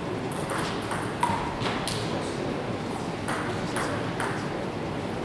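Table tennis balls clicking off table and bats: a string of irregular sharp ticks.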